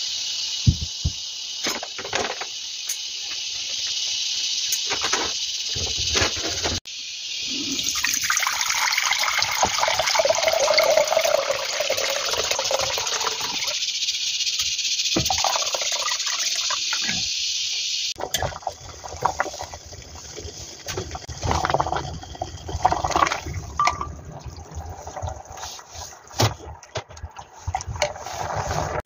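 Cooking sounds dominated by water: water running into a pot, then the soup bubbling on the hob while a spoon stirs it, with small clinks against the pot.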